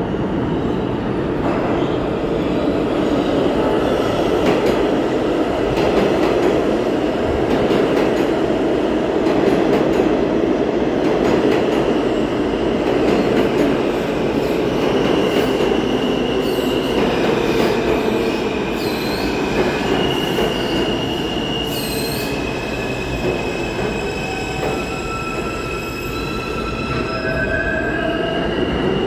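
New York City subway train pulling into an underground station, its wheels rumbling on the rails. From about halfway there are high-pitched squeals, several steady tones and a few sweeping ones, as it brakes to a stop.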